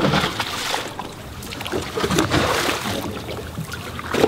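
Water lapping and slapping against the hull of a jet ski moored beside a boat's swim platform, with scattered knocks and rustles of drink cans and grocery bags being handled.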